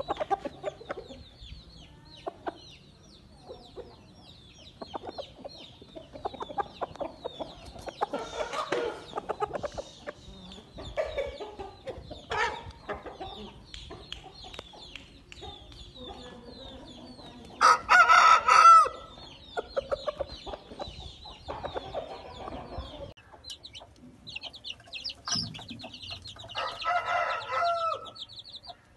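Aseel chickens clucking and chirping, with a rooster crowing once loudly a little past the middle; another drawn-out call comes near the end.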